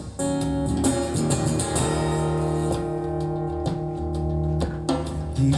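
Instrumental passage of a song: guitar chords held and changed over a bass line, with no singing.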